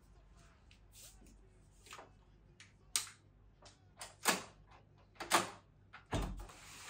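A run of sharp clicks and knocks, the loudest two close together near the end, then a low thump: a door's latch and bolt being worked and the door pulled open.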